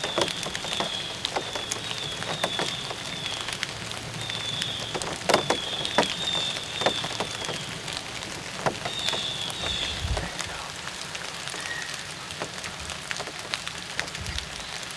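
Steady rain, with many small drops ticking one after another. Runs of a short high note repeat about every half second through the first ten seconds.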